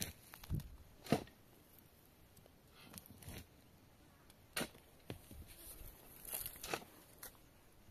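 A long-handled steel shovel digging into dry, stony soil: the blade scrapes and strikes the earth in irregular strokes as spadefuls of dirt and stones are tossed aside. The sharpest strike comes about a second in.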